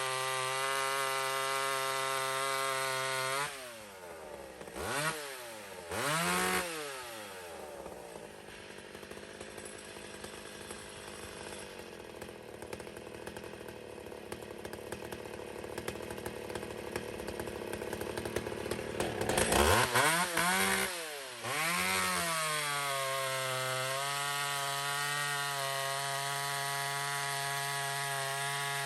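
Two-stroke chainsaw running steadily, then bogging down as it goes into a cut and blipping twice. It then cuts wood for about ten seconds with a rough, noisy sound, and revs back up to a steady run near the end, with a freshly hand-filed chain.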